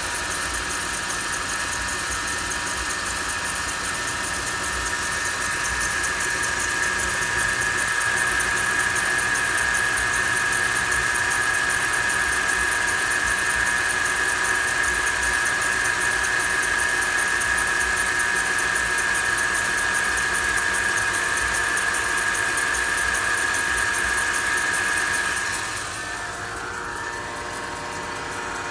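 Mercedes GL450's M273 V8 idling after a cold start, with a steady high-pitched squeal, a rubbing sound from the accessory belt drive, over the engine. The owner suspects the belt or its idler pulleys, as the belt visibly wanders on a pulley and the tensioner jumps slightly. Near the end the squeal cuts off and the engine sound drops.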